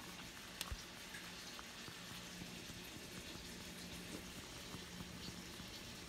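Faint, steady hiss of food cooking over a low, steady hum, with a couple of faint clicks under a second in.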